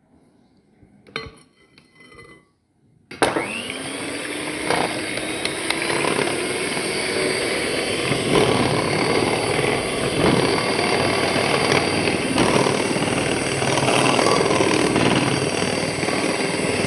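Electric hand mixer switched on about three seconds in, its motor whine rising as it comes up to speed, then running steadily while beating egg into the creamed butter and sugar.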